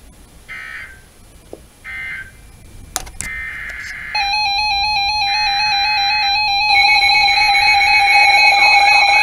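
NOAA Weather Radio SAME digital data bursts. Two short buzzy bursts mark the end of one message, then longer header bursts announce a new alert. About four seconds in, a weather radio receiver's electronic alarm tone sets off, triggered by the alert. Near seven seconds a second receiver's alarm joins and the tones grow louder.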